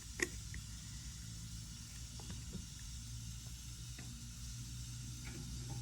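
Faint sizzle of flux as a soldering iron heats LED lead joints on a circuit board, over a steady low hum, with a few light ticks.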